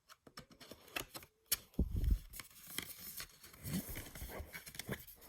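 Handling a CD and its plastic case: a quick run of small clicks and taps, a low thump about two seconds in, then light irregular clicking and rustling.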